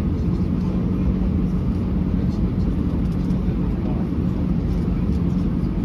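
Steady cabin noise of an Airbus A321-211 on departure: its CFM56 turbofan engines and the rushing airflow, heard from inside the cabin as an even rumble with a constant low hum.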